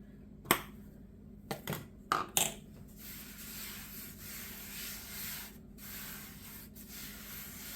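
A few sharp knocks of kitchen things being handled, then a steady rustling hiss with short breaks, as flour is sprinkled and spread over the work surface.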